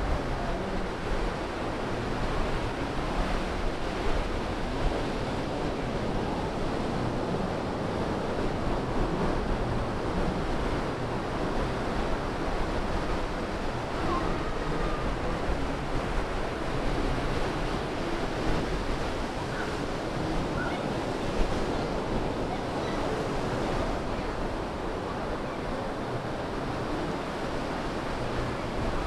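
Pacific surf breaking and washing up the sand in a steady rush, with a low wind rumble on the microphone.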